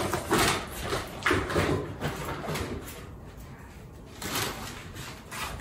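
Groceries being handled: a few light knocks and rustles of packaging, mostly in the first two seconds and again about four seconds in.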